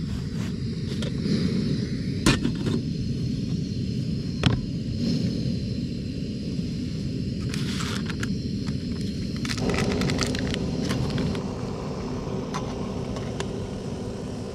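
Remote-canister camping gas stove lit and burning, a steady low flame roar, with two sharp clicks about two and four and a half seconds in.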